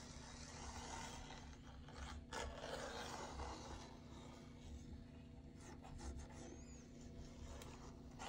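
Faint scraping and rubbing of a plastic glue bottle's tip drawn along the edge of a kraft-paper panel as a thin line of liquid glue is laid down, with a little rustle of the paper in hand, over a faint steady low hum.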